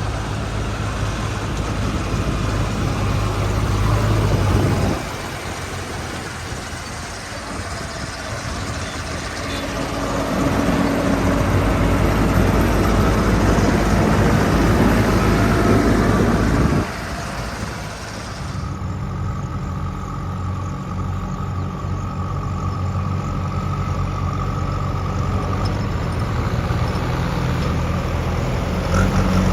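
A JCB 3DX backhoe loader's diesel engine running steadily, getting louder with a rushing noise while it works, as in the middle of the stretch. The sound changes suddenly about five seconds in and again around seventeen seconds.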